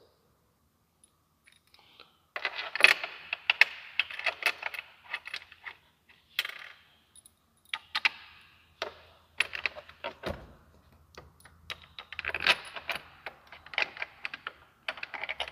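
Light metallic clicking and rattling in several bursts as a small bolt is threaded by hand into the roof bracket and snugged up, starting about two seconds in.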